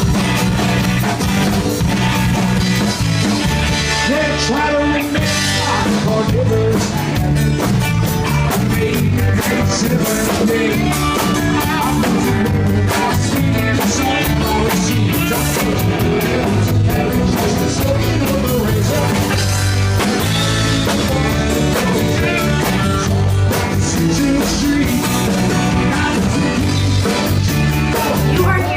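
Rock music with guitar, drums and singing, playing at a steady loud level.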